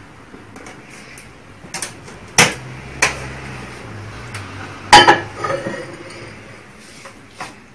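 Clicks and knocks of a BGH Quick Chef microwave's door being opened, then a cup set down inside with a sharp clink about five seconds in, followed by a few lighter knocks.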